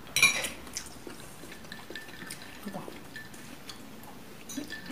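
Quiet eating sounds at a table: a sharp, high sound right at the start, then soft, scattered clicks of a fork on a plate and chewing.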